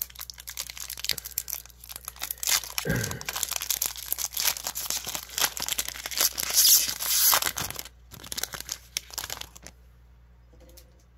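Foil Pokémon booster pack wrapper crinkling and tearing open, then rustling as the cards are pulled out; the crinkling is loudest a little past the middle and stops about ten seconds in.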